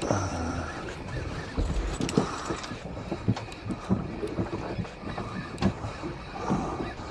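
Wind and sea noise aboard a small fishing boat drifting at sea, with scattered short knocks and clicks.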